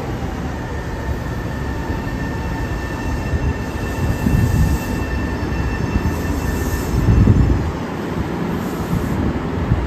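Senboku Rapid Railway 9300 series electric train pulling into the platform and slowing to a stop. It makes a steady rumble with a steady high whine that fades out about two-thirds of the way in, and louder low rumbles as the cars pass.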